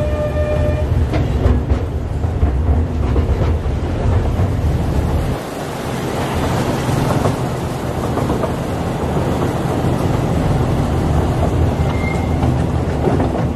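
Miniature toy train running along its track, heard from aboard: a steady low rumble with clicking from the wheels, plus a short steady tone at the very start. The heavy rumble drops away about five seconds in, leaving a lighter running noise.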